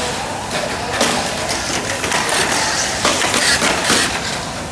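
Tamiya mini 4WD cars racing on a plastic track: a steady whirring with rapid clattering as the cars run along the lane walls.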